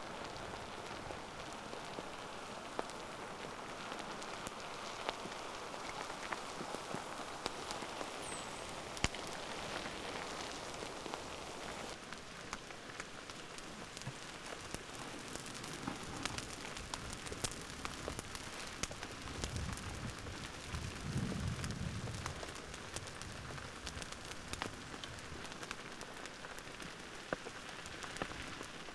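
Steady crackling and hissing of an advancing lava flow burning through grass and brush, with many small pops, and a short low rumble about two-thirds of the way through.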